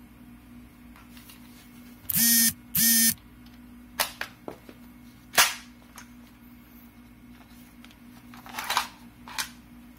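IWI X95 rifle's polymer stock and takedown parts being handled during field stripping: two loud rasping noises about two seconds in, then a series of clicks and knocks, the sharpest a little past the middle.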